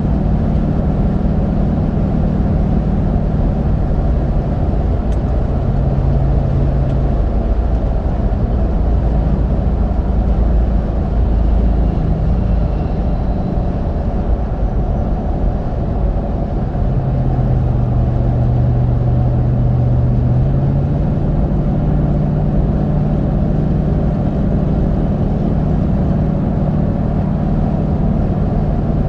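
Mickey Thompson Baja Boss A/T all-terrain tires on a Toyota Sequoia at highway speed, heard from inside the cabin: a steady road roar with a low tread hum. The hum shifts slightly in pitch a couple of times.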